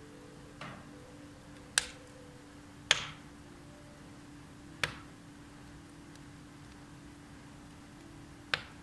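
Firewood burning in a wood-burning fireplace, crackling with five sharp, separate pops spaced a second or two apart, with a longer gap before the last one.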